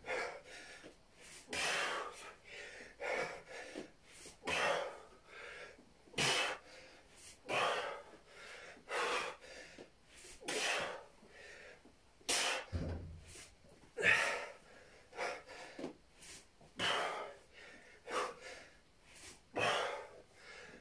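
A man's sharp, forceful exhalations, one with each sit-up rep, about every second and a half. About halfway through there is a single dull low thump.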